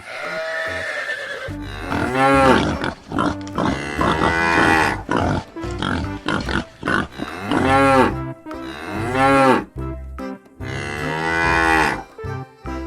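Cattle mooing, a run of separate calls that each rise and fall in pitch, over background music.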